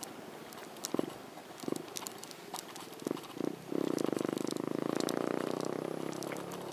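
Scattered clicks and knocks, then from about four seconds in a small engine's rapidly pulsing buzz sets in and slowly fades.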